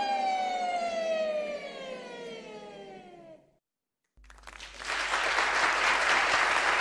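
Bulgarian women's folk choir holding its final chord, the voices sliding down together in pitch and fading out. After a brief silence, applause starts and swells.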